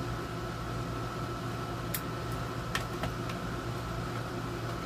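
Room air conditioner running with a steady hum and a faint constant whine. Three or four light clicks about two to three seconds in, from hands handling a power cord and plug.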